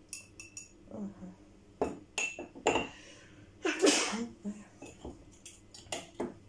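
Cups and dishes clinking and knocking on a kitchen counter, a few sharp knocks, then a single loud sneeze about four seconds in.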